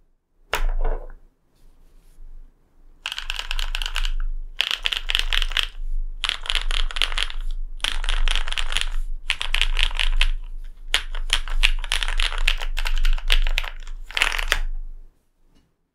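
Fast typing on a custom aluminium-plate mechanical keyboard with lubed linear switches (Cherry MX Black housings, NovelKey Cream stems) and GMK keycaps. A single deeper keystroke comes about half a second in. Then come several quick runs of clacking keystrokes, each about a second and a half long with brief pauses between, which stop shortly before the end.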